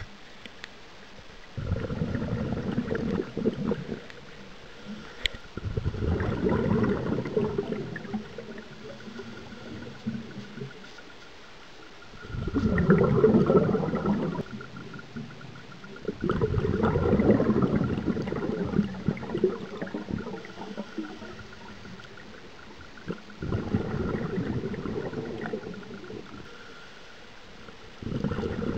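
Scuba diver's exhaled bubbles from the regulator, heard underwater: a bubbling rumble lasting two to three seconds, six times, every four to seven seconds, with quieter gaps between breaths.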